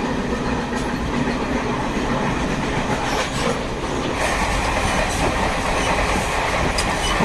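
A moving passenger train heard from on board: a steady rumble and rattle of wheels running on the rails, growing louder and brighter about four seconds in.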